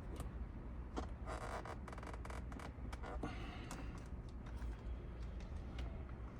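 Hand-handling sounds of plastic steering-wheel parts being pulled: a run of clicks and scraping for a couple of seconds about a second in, then scattered clicks, over a low steady hum.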